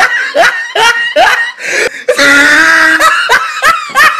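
A person laughing loudly in short repeated rising bursts, about two or three a second, with one long drawn-out note about halfway through.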